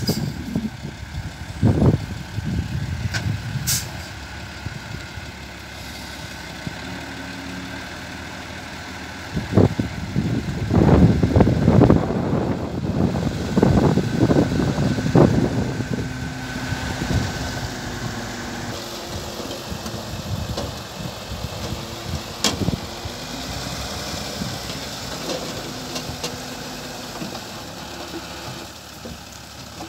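Nissan dump truck's diesel engine running, revving up for several seconds about a third of the way in as the loaded tipper bed is raised. In the second half, earth and rock slide off the tilted bed with a rushing hiss.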